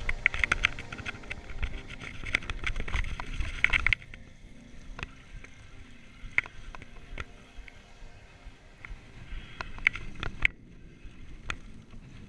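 Mountain bike rolling down a rocky gravel trail: tyres crunching over loose stones, with knocks and rattles from the bike. It is busier and louder for the first four seconds, then quieter with scattered sharp knocks.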